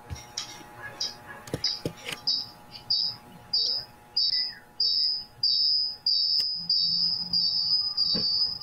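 High-pitched chirping repeated about one and a half times a second, each chirp growing longer until they nearly run together. A few clicks sound in the first two seconds.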